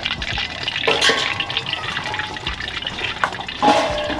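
A long wooden paddle stirs thin, boiling maize-and-cassava porridge in a metal pot over a fire, making a steady wet sloshing. Dry flour is being added gradually as the tuo zaafi is worked.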